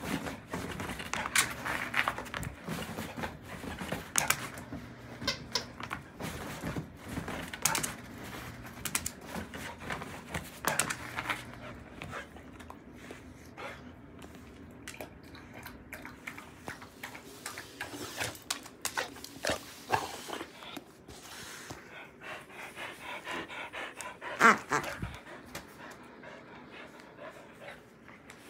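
Black-and-tan dog panting hard after a walk, with scattered clicks and scuffs as it moves around, and one louder sound a few seconds before the end.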